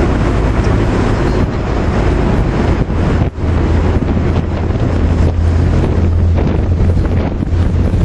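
Wind buffeting the microphone over the steady low drone of a tour boat's engine under way on the water.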